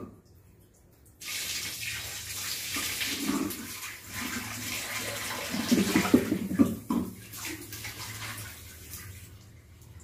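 Water running and splashing in a steady rush. It starts about a second in and fades away near the end.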